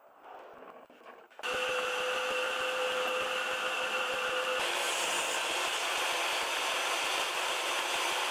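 DeWalt table saw cutting plywood. After a quiet first second and a half the saw noise comes in abruptly with a steady hum, and about three seconds later it turns into a broader, hissier noise as the blade runs through the wood.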